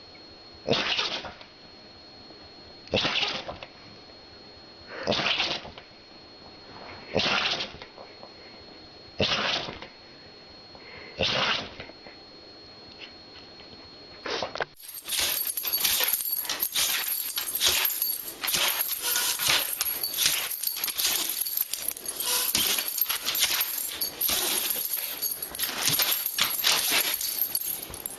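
Dog sounds from two clips: first six short, loud sounds about two seconds apart, then, after an abrupt cut, a denser run of dog noises.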